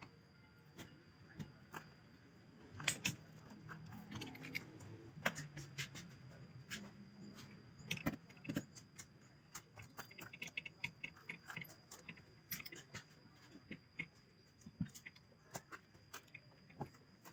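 Irregular light clicks, taps and metallic clinks of tools and small metal parts being handled during installation work, with a faint steady high tone underneath.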